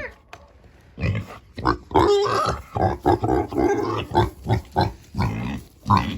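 Several sheep vocalising in a string of short calls, one after another.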